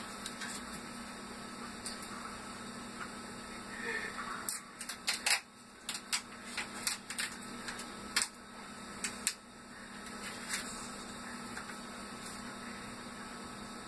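Plastic packaging crinkling and crackling in a run of sharp rustles from about four and a half to nine and a half seconds in, as a soft-plastic fishing lure's bag is handled and opened, over a steady low electrical hum.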